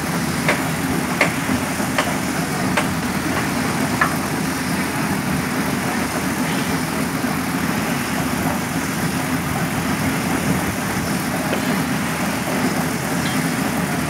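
Mobile concrete mixer running: its drum turning with a steady low mechanical drone. There are a few sharp knocks in the first four seconds, about one every three-quarters of a second.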